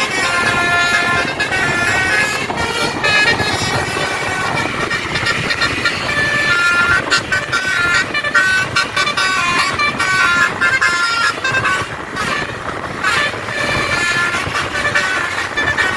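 A bus's multi-note musical air horn ('telolet basuri') playing a rapid tune of short stepped notes, with a brief break about three-quarters of the way through, over the rumble of engines and traffic.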